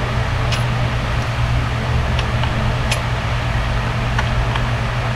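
Steady low hum of an electric fan, with several light clicks as new spark plugs are dropped into the plug wells of a Mazdaspeed3 engine.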